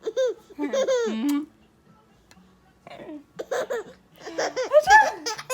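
A baby laughing in quick high-pitched bursts, getting louder toward the end, after a short high vocal sound near the start.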